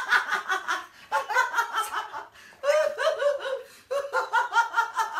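A woman laughing in four bursts, each a run of quick, high-pitched pulses.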